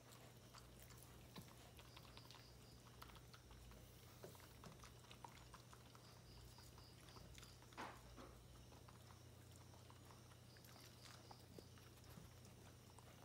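Near silence: faint clicks and soft chewing sounds of dogs play-biting, over a steady low hum.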